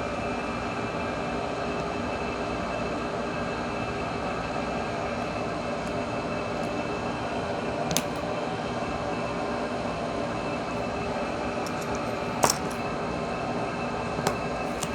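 A steady mechanical hum of room noise, with a few small sharp clicks: one about eight seconds in and a couple more near the end, as small connectors and parts are handled.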